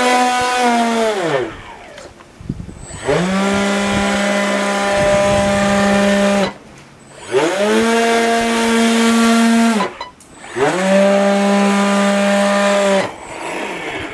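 Brushless motor spinning a two-blade air propeller cut down to about 4 cm blades on an RC airboat, run in bursts. It makes a steady, buzzy whine with strong overtones that spins up quickly, holds, then winds down, four times with short pauses between.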